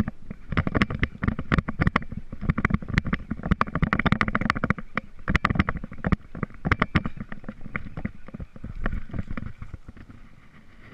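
Close handling noise on the camera: irregular knocks, clicks and scrapes as a shirt sleeve and arm rub against the body-mounted camera while a hooked bass is played and reeled in. It thins out over the last few seconds.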